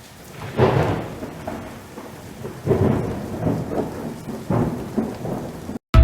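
Thunder rumbling over steady rain, in several rolling swells, cutting off abruptly near the end.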